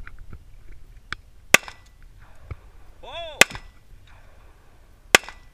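Three handgun shots, each a single sharp crack, spaced about two seconds apart, with a fainter crack shortly before the first.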